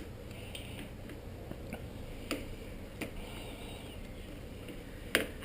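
A few sharp, faint metallic clicks and taps as a crank puller tool is threaded into a bicycle crank arm and handled against it: four separate clicks over a quiet background.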